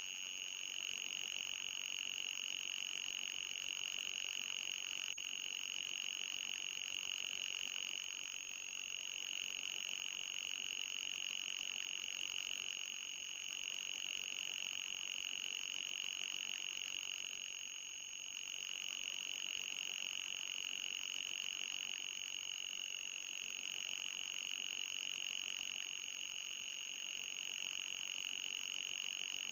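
Synthesized anti-mosquito repellent tone: a steady high-pitched electronic whine with a fainter higher overtone, dipping slightly in pitch and level about every five seconds.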